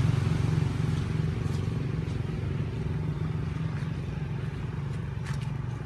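A motor engine running steadily as a low hum that slowly fades, with a few faint clicks over it.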